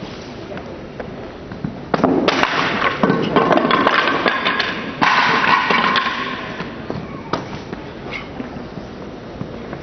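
Crowd cheering and clapping for a successful board break, starting suddenly about two seconds in, surging again about three seconds later, then dying down.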